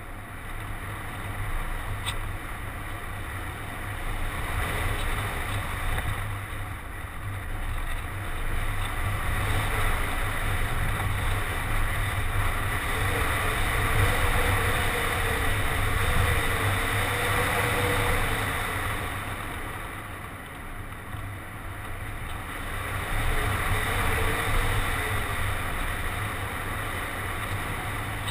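Airflow rushing and buffeting over a GoPro HD Hero mounted on a ParkZone Radian RC glider in flight. The rumbling wind noise swells and eases, louder through the middle, dipping about two-thirds of the way in and rising again near the end, with a faint wavering hum under it.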